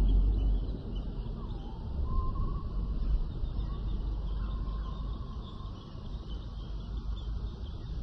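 Layered wild-forest ambience: continuous high chirping, with a steady low rumble underneath. A louder low rumble dies away in the first second, and a long bird-like call rises and then holds about two seconds in.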